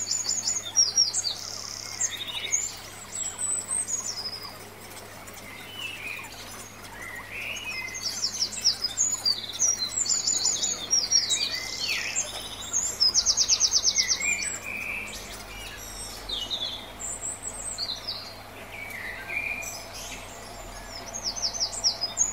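Small birds chirping and calling, many short high calls one after another, with a rapid trill about 13 seconds in.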